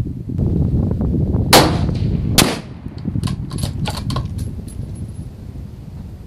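Two gunshots, a little under a second apart, the first the louder with a trailing echo, over heavy wind buffeting on the microphone. A run of lighter clicks follows.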